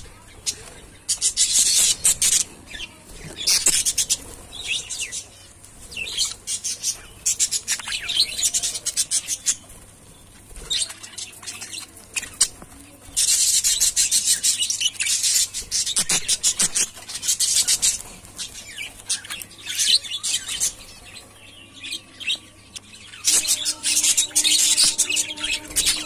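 A flock of budgerigars chattering, a fast high-pitched warble of chirps that comes in bouts of a second or few, with quieter gaps between.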